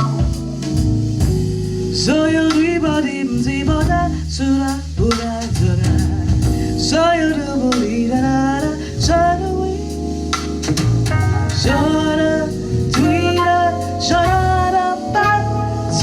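A female soul singer singing melismatic vocal runs and ad-libs, her voice sliding up and down in pitch, over a band with guitar, bass and drums.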